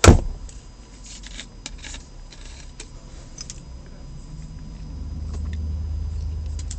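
Handling noise on a phone microphone: a sharp knock at the start, then faint scattered clicks as the phone and a plastic soda bottle are handled. A low rumble builds from about five seconds in.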